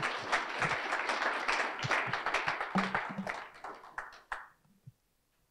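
Audience applauding: a dense run of claps that thins to a few last claps and dies away about four and a half seconds in.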